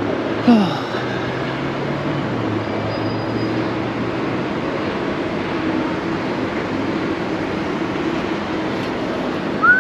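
Steady city street din of traffic. About half a second in, a short sound glides sharply down in pitch, and a brief high chirp comes right at the end.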